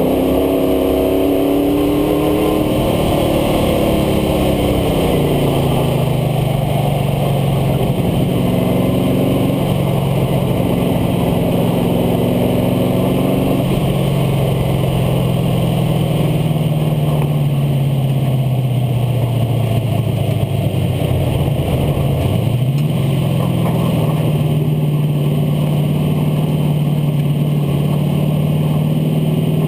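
International Harvester Scout II engine running under the truck at track speed, heard from its front air dam with road and wind noise. The engine note falls gradually for long stretches as it slows, rises sharply for a moment about 22 seconds in, then holds steady.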